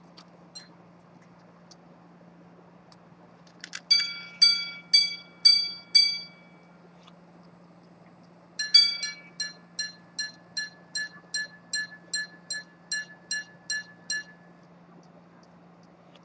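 Antique minute-repeater pocket watch striking the time on its gongs. First comes a run of about five slower strikes, then after a pause a quicker run of about fourteen strikes at a higher pitch, each ringing briefly. A few small clicks of the mechanism come before the chime.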